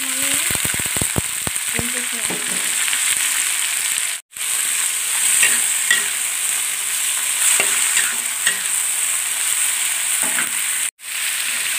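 Sliced green beans frying in hot oil in a wok: a rapid crackle as they go in during the first two seconds, then a steady sizzle as they are stir-fried, with the metal spatula scraping the pan now and then. The sound drops out for an instant twice, about four seconds in and near the end.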